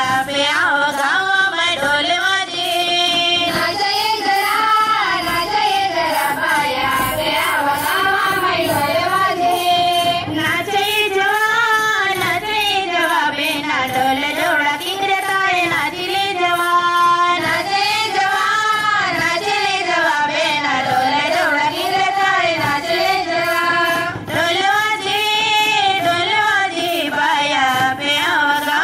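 Children singing a folk dance song with a repeating, rising-and-falling melody, over a steady percussion beat.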